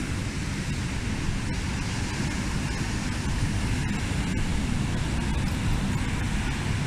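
Heavy Atlantic surf breaking and washing up a sandy beach: a steady rush of wave noise, heaviest in the low end, that stays even throughout.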